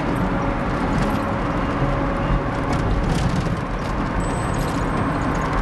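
Steady engine and tyre noise of a car driving, heard from inside the cabin, with a few faint clicks.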